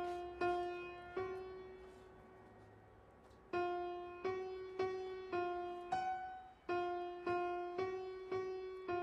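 Solo piano score playing single repeated notes that alternate between two close pitches, about two notes a second, sparse and slow. The notes break off for about two seconds, then resume near the four-second mark.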